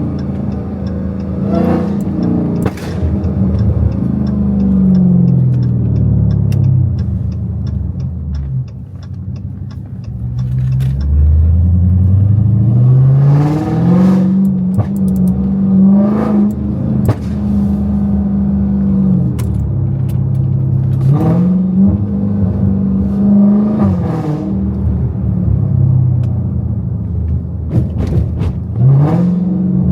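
Supercharged 6.2-litre HEMI V8 of a catless Dodge Hellcat. It coasts down with a run of crackles, then accelerates hard from about a third of the way in, its pitch climbing and dropping back at each upshift. Sharp exhaust pops come off the throttle, and the title claims supercharger whine.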